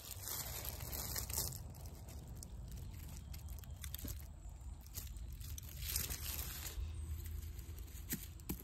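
Dry leaf litter rustling and crackling as it is disturbed by hand, in a few short bursts with light clicks near the end, over a low steady rumble.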